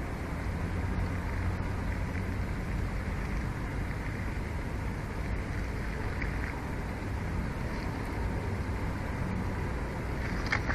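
Steady wind rushing over the nest camera's outdoor microphone: a constant low rumble and hiss with no let-up, and a few faint short sounds near the end.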